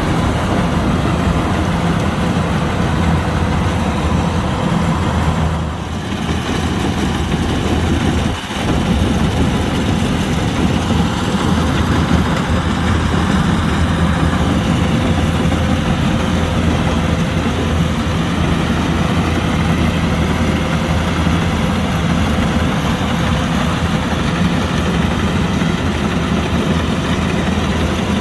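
Kubota combine harvester's diesel engine and machinery running steadily, with two brief drops in level a few seconds in.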